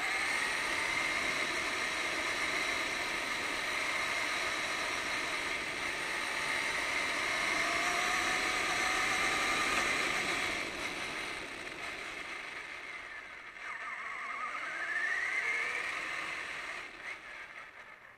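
Radio-controlled truck driving on pavement, heard from its onboard camera: a motor and gear whine that rises and falls in pitch with speed, over a steady hiss of tyres and wind. It eases off about two-thirds through, climbs again in a quick rising sweep, then stops suddenly at the end.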